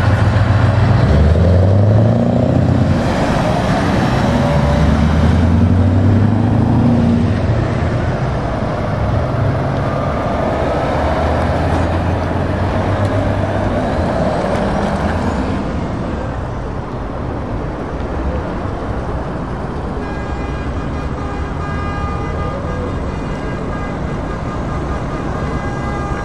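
Heavy truck diesel engines as tractor units pull away one after another, the engine note loudest in the first few seconds and shifting in steps as they accelerate and change gear. From about twenty seconds in, a steady horn-like tone is held under the engines.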